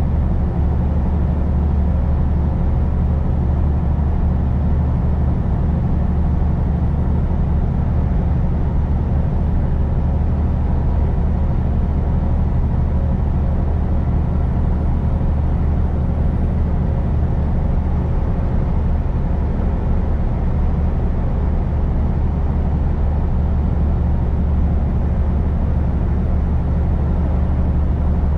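Semi truck's diesel engine and tyre noise droning steadily at highway cruising speed.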